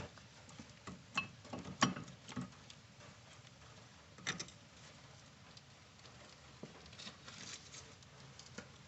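Scattered metal clicks and knocks from hand tools and brake parts being handled, in irregular clusters a few seconds apart.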